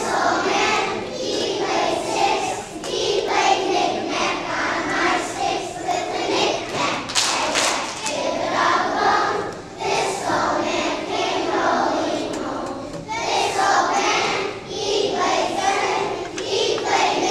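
A class of young children singing together as a choir, with a few sharp claps about seven seconds in.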